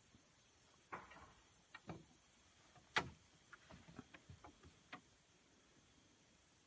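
Faint high hiss that cuts off about two and a half seconds in, followed by a run of small clicks and ticks, the sharpest about three seconds in and the rest scattered over the next two seconds.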